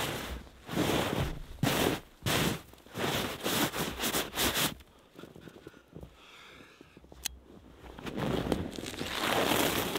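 Snow being dug and brushed aside by hand: a run of crunching, scraping strokes, then a quieter few seconds and a longer rustling stretch near the end.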